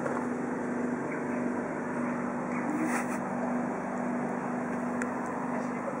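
A steady low machine hum under an even hiss, with a few faint clicks.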